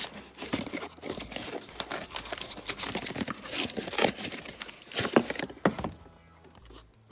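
Packaging being handled and unpacked: crinkling and rustling with irregular sharp clicks and knocks. It stops about five and a half seconds in.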